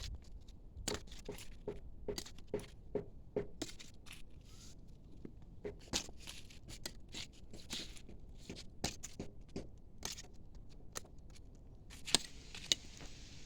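A knife blade making short, repeated scraping strokes, a steady run of about two or three a second early on, then more irregular.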